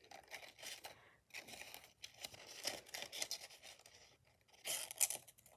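Faint paper rustling and scraping as a small paper card and its thin paper strips are handled and pulled, in irregular bursts, loudest about five seconds in.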